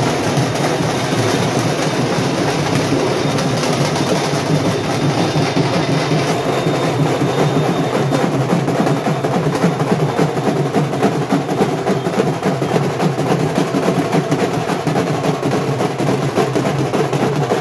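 A troupe of dhol drums beaten together with sticks, a loud, continuous drumming rhythm.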